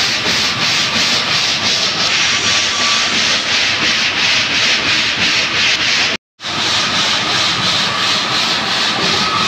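Steady rasping, rubbing machine noise with a regular pulse of about four beats a second, from stone-cutting machinery running in a slate factory. It drops out completely for a moment about six seconds in.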